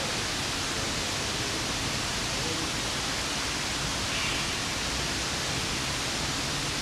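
Steady, even rushing hiss of water running over rock.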